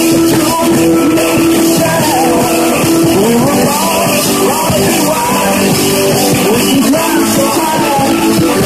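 Loud late-1960s rock music with electric guitar and singing, with held notes under gliding, bending sung or played lines.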